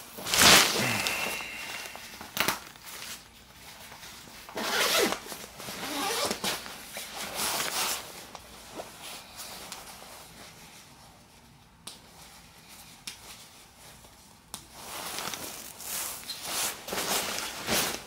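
Nylon shell of a Moncler Grenoble down ski coat rustling and swishing as it is handled and laid out, with zipper sounds, in several bursts: the loudest about half a second in, and a quieter stretch of several seconds in the middle.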